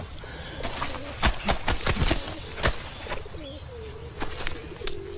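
Birds cooing in soft wavering calls, with a run of sharp knocks that are loudest between about one and three seconds in.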